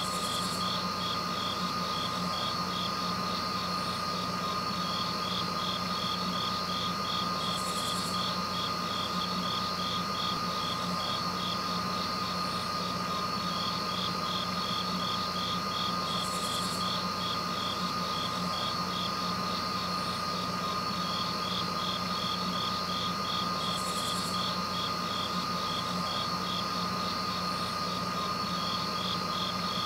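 Crickets chirping in a fast, even pulse over a steady hum with a constant high tone; a short, higher buzz comes back roughly every eight seconds.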